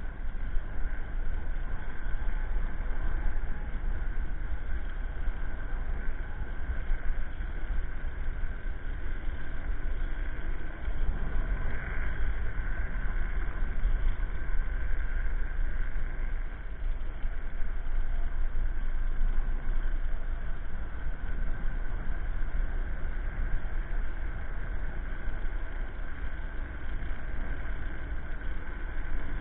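Electric scooter riding on an asphalt path: wind buffeting the microphone with a heavy low rumble, road noise from the tyres, and a steady high motor whine.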